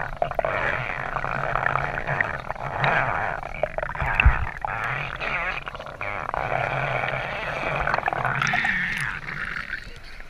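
Underwater recording of a dog paddling at the surface overhead: a muffled, dense churning and gurgling of water stirred by its strokes. The sound eases near the end.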